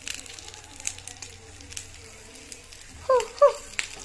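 Meat ribs sizzling faintly in a double grill pan, with a few light clicks. About three seconds in, two short, loud chirps that fall in pitch.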